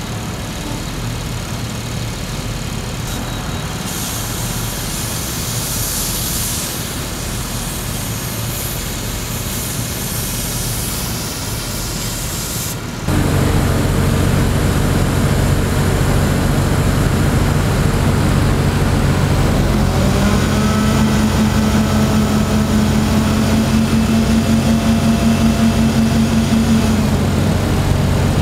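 Mobile crane's engine running steadily; about halfway through the sound jumps louder and closer. A few seconds later a higher engine tone comes in, rising slightly, holds for several seconds, then drops away.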